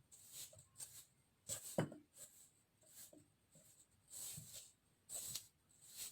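Faint, irregular soft rustles and squishes of hands rubbing and squeezing a crumbly dough of flour, margarine and grated cheese.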